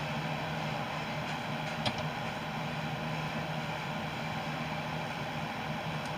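Steady low hum over an even hiss, with one small click about two seconds in.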